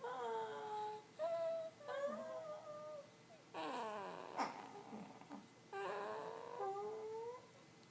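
A one-month-old baby making drawn-out moaning coos, with his mother cooing along: about five long, high vocal sounds in a row, several sliding down in pitch.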